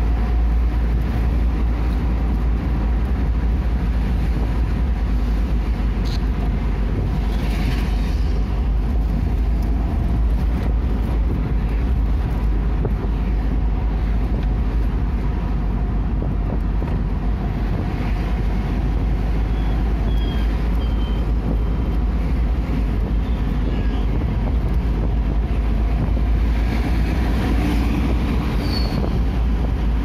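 Steady engine and road-noise rumble from inside a moving vehicle's cabin, deep and even throughout, with a faint constant hum above it.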